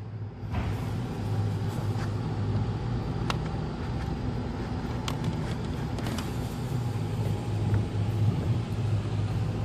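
Steady low machine hum, with a few scattered light clicks as hoses and fittings are handled and reconnected on an oxygen concentrator's compressor.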